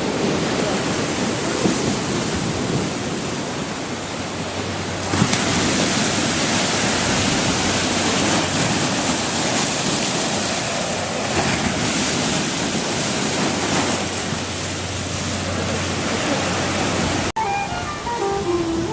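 Sea surf breaking and washing in, a steady rush of noise. It changes abruptly about five seconds in, and near the end it cuts off into music with plucked-string notes.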